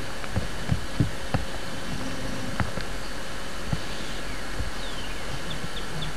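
Steady hiss with irregular soft low thumps, typical of a handheld camcorder being moved and handled. Near the end a rapid series of short high chirps begins, about four a second.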